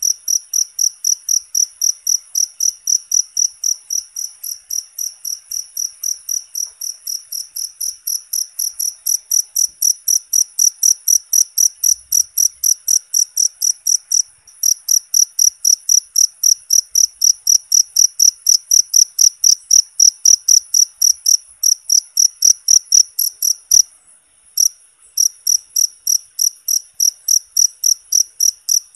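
A cricket chirping steadily, a high-pitched chirp about three times a second. It pauses briefly twice, about 14 seconds in and about 24 seconds in.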